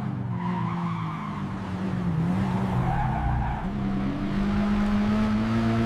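Race car engine sound effect: a steady engine drone whose pitch wavers slightly.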